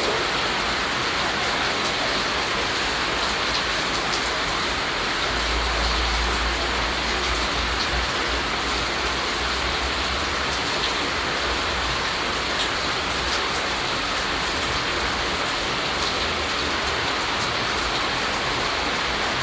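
Steady rain falling, a dense hiss of drops with scattered distinct drop ticks. A deep low rumble sits underneath from about five to twelve seconds in.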